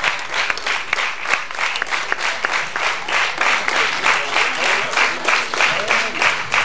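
Audience applauding, the claps falling into a steady rhythm, with a few voices calling out in the crowd.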